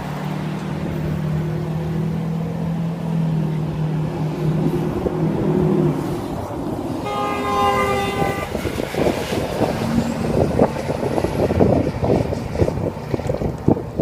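Road traffic: a vehicle's engine hums steadily, then a vehicle horn sounds once for about a second and a half around halfway. After that, wind buffets the phone's microphone.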